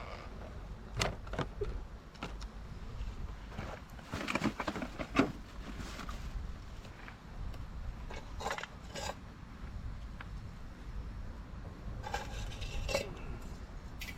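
Scattered clinks and rattles of small hard objects being handled, in several short clusters, over a steady low rumble.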